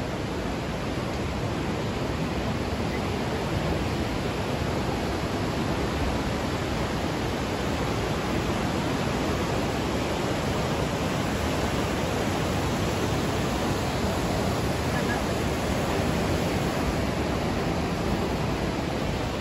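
Steady rushing of river rapids pouring over boulders in a narrow rock gorge, an even, unbroken noise.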